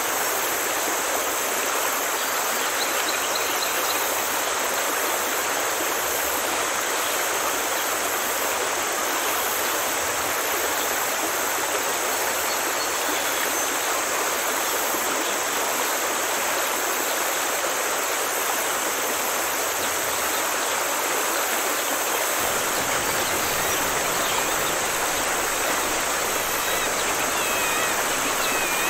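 Steady rushing water like a stream, an even wash of noise that grows a little deeper about three-quarters of the way through. A few faint bird chirps show near the start and near the end.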